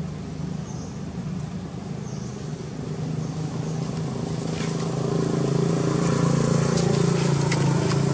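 Motor vehicle engine running steadily and growing louder over the first few seconds, as if coming closer, then holding level.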